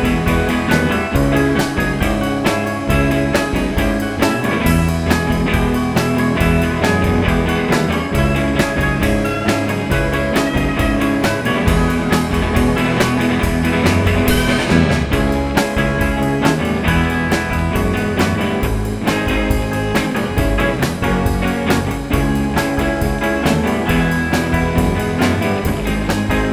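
Psychedelic rock band playing live: electric guitars over a drum kit keeping a steady beat.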